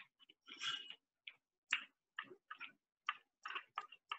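Faint, irregular taps and scrapes of a utensil stirring chopped carrot in a pan.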